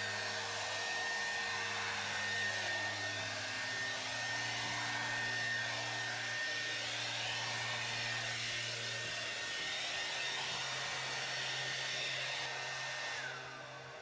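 Anko hairdryer running on its high 1600-watt setting: a steady rush of air with a thin high whine. Near the end it is switched off and the whine falls away as the motor spins down.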